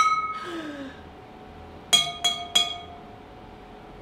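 A water xylophone: a plastic spoon lightly taps a drinking glass partly filled with water three times in quick succession, about a third of a second apart. The glass rings out on one clear tone after each tap, the ring dying away within about a second.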